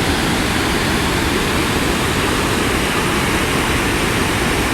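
Loud, steady rushing of water, an even roar with no rhythm or breaks.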